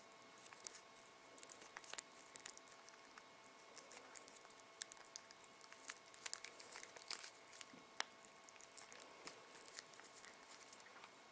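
Two cats licking and chewing a treat from a pouch held in a hand: faint wet clicks and smacks at an uneven pace, with light crinkling of the packaging.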